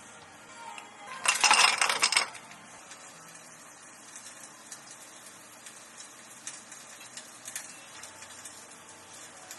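Clatter of cafe drink-making: a loud burst of rattling clatter about a second in, lasting about a second, followed by scattered light clinks of utensils and dishware.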